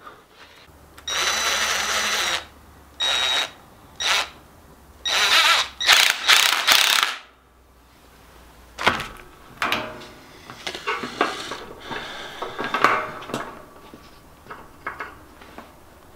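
Cordless drill run in about five short bursts of up to a second or so, with a steady whine, driving up the fittings and hose clamps on an argon gas line. After that, scattered clicks and small metallic rattles of the hose clamps and fittings being handled.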